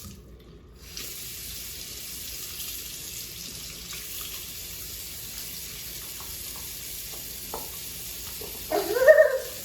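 Water running from a tap into a sink as something is rinsed under it. The flow drops away for about the first second, then runs steadily, with a few small knocks. A short vocal sound near the end.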